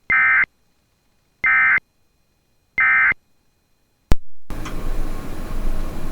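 Emergency Alert System end-of-message signal: three short bursts of warbling SAME digital data tones, about a second apart, closing the alert. About four seconds in comes a sharp click, then a loud steady static-like noise starts.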